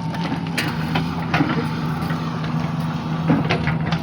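JCB 3DX backhoe loader's diesel engine running steadily, with a few sharp clanks and knocks over it, the loudest about three seconds in.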